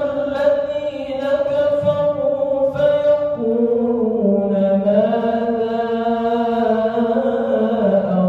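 An imam reciting the Quran in a melodic chant, drawing out long sustained notes. The pitch shifts about three seconds in and again near the end.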